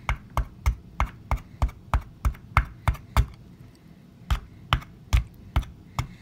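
A small dig-kit hammer tapping repeatedly on a water-soaked dig-kit block, about three sharp taps a second. A pause of about a second comes partway through, then a shorter run of taps.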